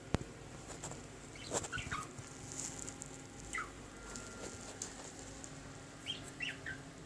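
Chickens sneezing: short, sharp sounds falling in pitch, in small clusters about one and a half, three and a half and six seconds in, after a single click at the very start.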